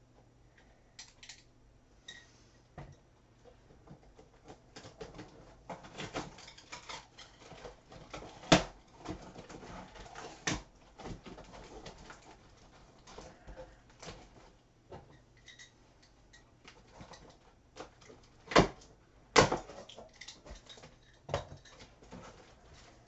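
Cardboard box being opened and rummaged through by hand: irregular rustling, scraping and clicking of flaps and packing, with a few sharp knocks, loudest about eight seconds in and twice close together near the end.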